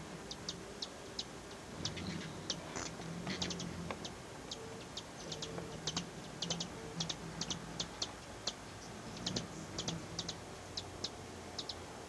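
Hummingbirds chipping: a rapid, irregular series of short, sharp, high chip notes, often in quick pairs, with the low hum of hovering hummingbird wings coming and going.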